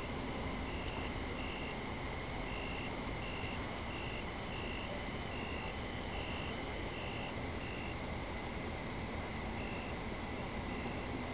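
Night insects: crickets trill steadily and fast, while a second insect gives short chirps about once or twice a second, pausing briefly about two thirds of the way through. A faint low hum sits underneath.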